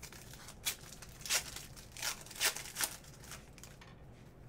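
Foil trading-card pack wrapper being torn open and crinkled by hand: about five short, sharp crinkling tears in quick succession over a couple of seconds.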